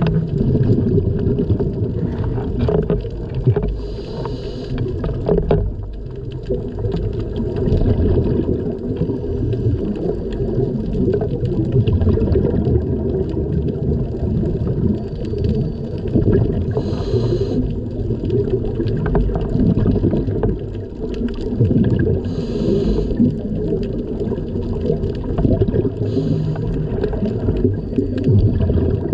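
Scuba diver's breathing heard underwater through the camera housing: a steady low rumble and bubbling of exhaled air, with a short regulator hiss every few seconds.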